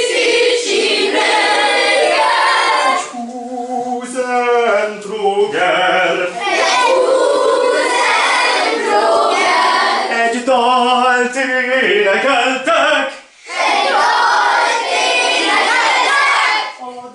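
A class of young children singing an echo song together with their teacher in an exaggerated mock-opera style, with long held notes that waver heavily. The singing breaks off briefly about 13 seconds in, then starts again.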